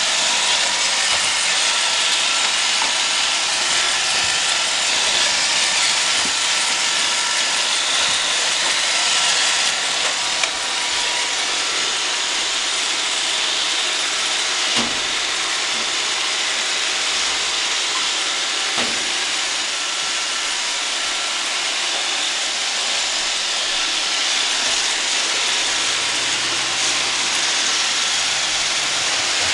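Roomba robot vacuum running: a steady whirring hiss of its suction fan and brushes, with two light knocks about halfway through.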